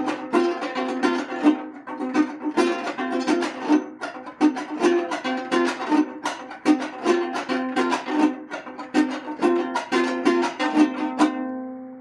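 A small plucked string instrument played solo: a quick, steady run of picked notes, several a second. The playing stops near the end and the last notes ring out and fade.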